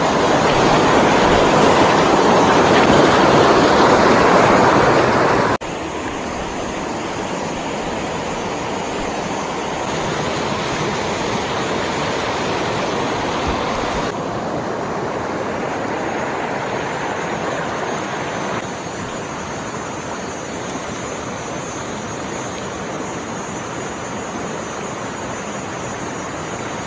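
Shallow rocky stream, water rushing over stones and small cascades as a steady wash of noise. It is loudest for the first five or so seconds, drops abruptly, then shifts level suddenly a couple more times.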